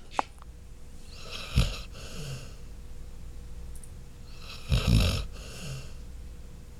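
Sleeping Labrador Retriever snoring: two snores about three seconds apart. A brief click right at the start.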